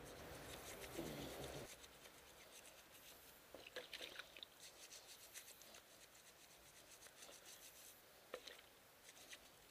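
Faint rubbing of a toothbrush scrubbing a motorcycle's front brake caliper pistons with soapy water, a rough repeated brushing texture.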